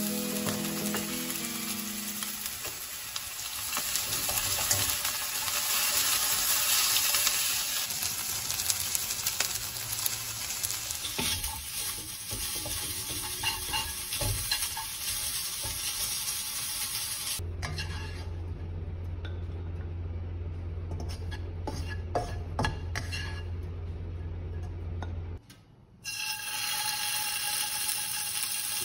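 Sliced red onion and thin strips of meat frying in a nonstick wok, sizzling while a spatula stirs them, with many sharp clicks of the spatula against the pan. For several seconds in the middle a steady low hum runs under it, and near the end the sound briefly drops to almost nothing before the sizzling returns.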